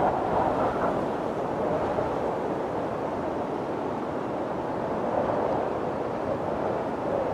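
Snowstorm wind blowing steadily in gusts, a rushing noise that eases about a second in and swells again near the end.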